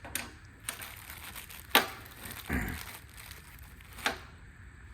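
Metal mounting hardware (square U-bolts, spacers, washers and nuts) clinking and knocking as it is handled and fitted: about five separate sharp knocks, the loudest a little under two seconds in, followed by a duller thump.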